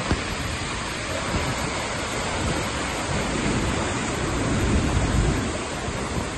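Steady rushing roar of a waterfall plunging into its pool, with wind gusting on the microphone as an uneven low rumble.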